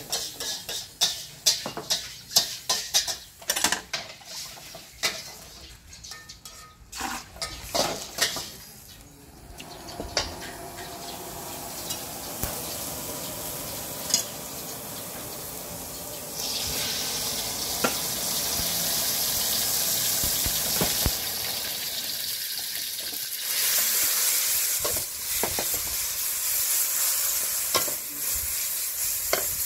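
Metal spatula and ladle clanging and scraping against a hot wok in quick strokes, then a steady frying sizzle that jumps louder about halfway through and carries on, with a scrape now and then as rice noodles fry in the steaming wok.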